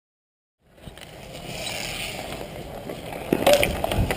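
Ball hockey game play: sticks scraping and clacking against the ball and the court surface, with players' running steps. It starts under a second in, and sharp knocks come in from about three seconds in.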